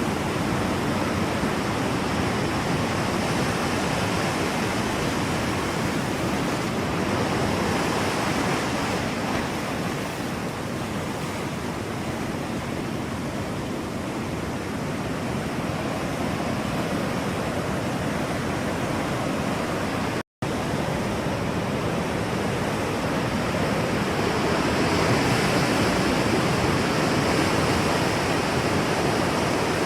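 Ocean surf, waves rolling and washing ashore in a steady rush that swells and eases. The sound cuts out for a split second about two-thirds of the way through.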